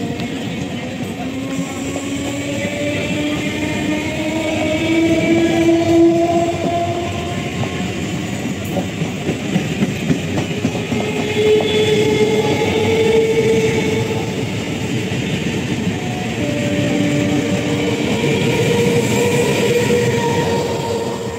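Electric multiple unit (EMU) local train running past at close range: wheels clattering on the rails over a steady rumble, with the electric traction motors whining in several tones that rise slowly in pitch as the train gathers speed.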